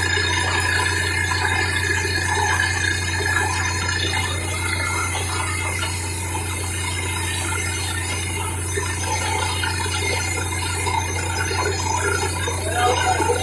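Borewell drilling machine running steadily, a constant low hum under a rushing, water-like noise, with a few louder clatters near the end.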